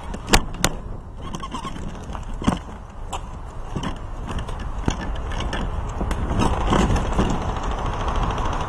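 Rattling and rubbing of gear and handling noise on a body-mounted camera, over a steady low rumble. Two sharp clicks come about a third of a second apart near the start.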